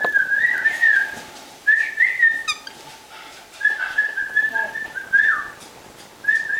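Pet cockatiel whistling in four warbling phrases of about a second each, with a short rapid trill about two and a half seconds in. The bird is chirping excitedly.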